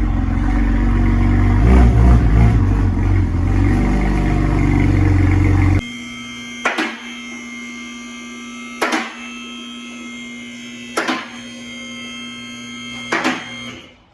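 A heavy low rumble for about six seconds that cuts off abruptly. Then a car lift's electric pump motor hums steadily, with a sharp click about every two seconds as the lift's safety locks catch while it rises.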